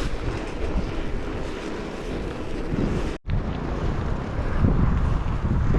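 Wind buffeting the microphone: a steady, noisy rush strongest in the low end, with a brief sudden dropout about three seconds in.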